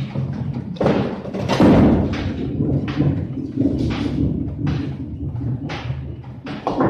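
Bowling alley din: a run of knocks and clatters from balls and pins, loudest about a second and a half in, over a steady low hum.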